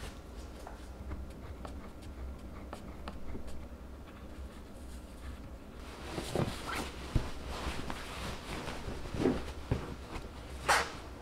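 Fabric rustling and swishing as a cloth cover is pulled and tugged over a foam sofa seat cushion, with a loud swish near the end. Before that, a few faint knocks and ticks as the sofa's frame pieces are fitted together.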